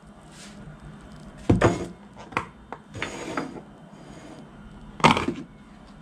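A plastic yogurt tub and a ceramic saucer are handled on a granite countertop, with the tub's plastic lid scraping as it is pulled off. There are two sharp knocks, one about a second and a half in and a louder one near the end, with smaller clicks between.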